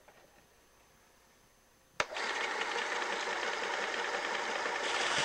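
About two seconds in, a switch clicks and the WorkSharp 3000 sharpener's electric motor starts up, driving the abrasive belt of its belt-sharpening attachment, and then runs steadily.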